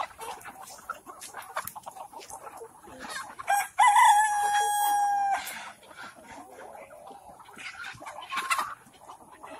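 Kadaknath rooster crowing once, ending in a long held note of about two seconds, with hens clucking and calling in short bursts around it.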